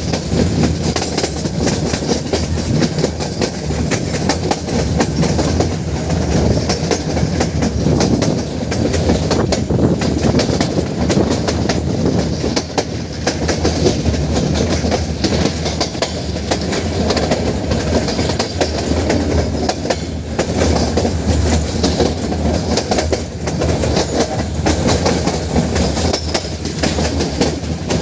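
Metre-gauge passenger train running along the line, its wheels clattering steadily over the rail joints, heard from an open coach window.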